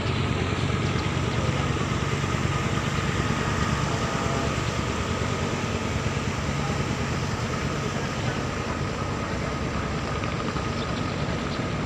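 Diesel engine of a large wooden river passenger boat running steadily as it pulls away from the pier: a low, even hum with a thin, steady high whine above it, easing slightly in loudness toward the end.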